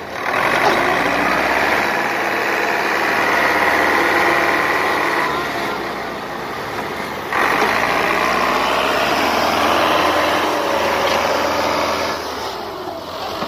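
HMT 5911 tractor's diesel engine working hard under heavy load, hauling a loaded trolley through a soft paddy field. The engine is held at high revs twice, easing off for about two seconds between, then drops lower near the end.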